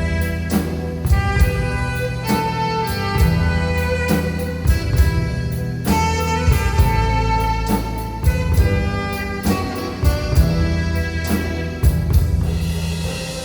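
Live band music: an alto saxophone playing a melody with long held notes over keyboard and a drum kit keeping a steady beat.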